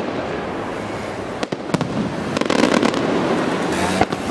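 Fireworks going off: a dense, continuous crackle with several sharp bangs, a few in the middle and one near the end.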